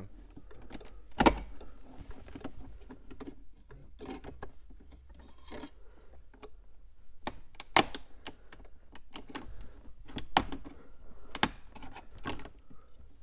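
Hard plastic clicks and taps as a pick / panel tool works under a car's dashboard trim piece beside the hazard button, prying it loose. The clicks come irregularly, the loudest about a second in and a quicker cluster in the second half.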